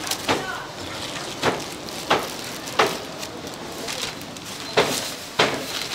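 Hot oil sizzling as battered food deep-fries, a steady hiss, with about six sharp knocks at irregular intervals from cooking utensils.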